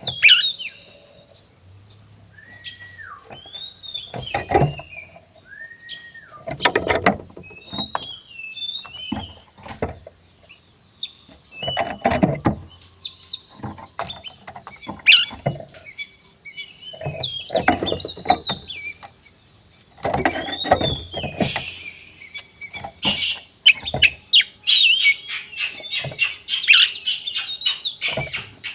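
Oriental magpie-robin (kacer) singing in its aggressive fighting-style song: clear arching whistles broken by rapid harsh rasping chatter, in irregular phrases.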